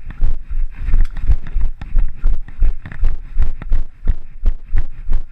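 Running footsteps on a muddy forest trail, picked up through a body-worn camera: heavy, even thumps at about three a second, a runner's stride.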